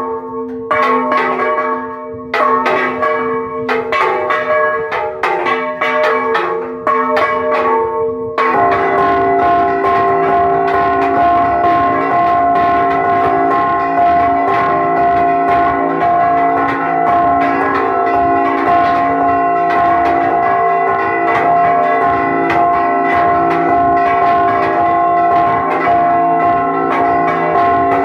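Church bells rung by hand in a repique: bells struck in quick rhythmic groups, and about eight seconds in the ringing thickens into a dense, continuous peal of several bells as a large swung bell joins in.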